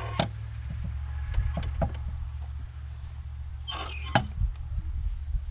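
Scattered light clinks and knocks from a wooden plank door and its hardware being handled in its frame, the sharpest about four seconds in, over a steady low rumble.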